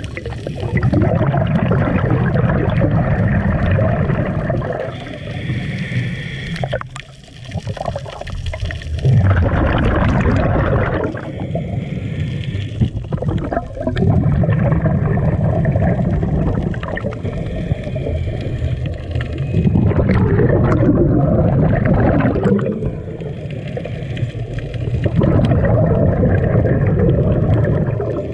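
Scuba diver breathing through a regulator underwater: loud bubbling exhales alternate with quieter inhales in slow cycles of roughly five seconds.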